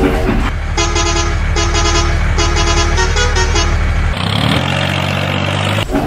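Vehicle horn honking about four times in a row over a steady engine rumble. About four seconds in, the horn and rumble give way to a different engine note that rises briefly and then holds.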